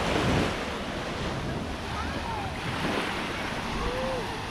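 Small surf washing up on a sandy beach, with wind buffeting the microphone; a wave surges in right at the start.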